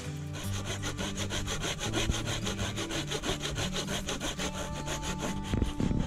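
Hand saw cutting through dead wood with quick, even back-and-forth strokes, several a second.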